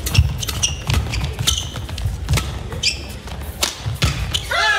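Badminton rally: rackets strike the shuttlecock in a quick, irregular string of sharp hits, mixed with players' shoes squeaking briefly on the court mat.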